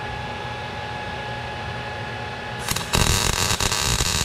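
A steady hum with a faint whine, then about three seconds in a MIG welding arc strikes and crackles steadily and loudly: an ESAB Rebel 235 MIG welder running wire into 10-gauge steel subframe connector.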